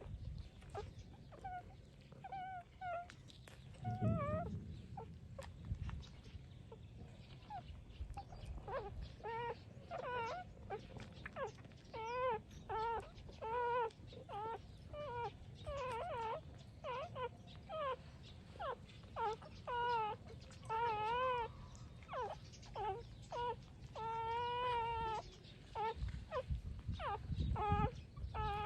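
Puppies about three weeks old squeaking and whimpering while nursing: many short, high-pitched cries, few at first and then coming one or two a second, with a couple of longer drawn-out whines near the end.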